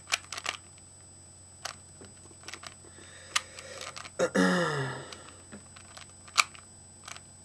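Rubik's cube being turned fast by hand: plastic layers clicking and clacking in quick, irregular runs. About four seconds in, a short voice sound falls in pitch.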